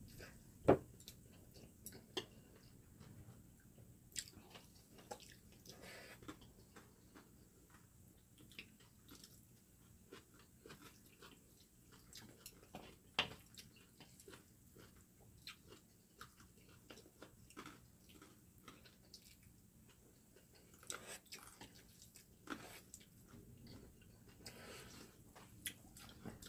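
Faint eating sounds: chewing and slurping of cold spicy kimchi noodles, with scattered light clicks of metal chopsticks against ceramic bowls.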